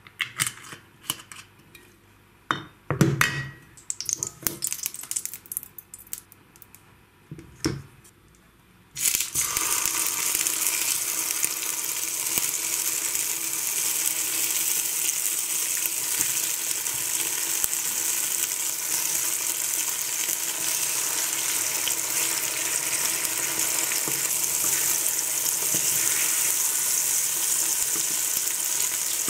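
Tomato slices frying in hot oil in a pan: a steady sizzle that starts suddenly about nine seconds in. Before it, a few scattered clicks and knocks.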